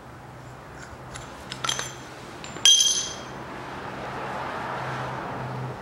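Small steel parts of a spare-wheel winch being handled and set down on a concrete floor: a few light clicks, then one loud ringing metal clink nearly three seconds in.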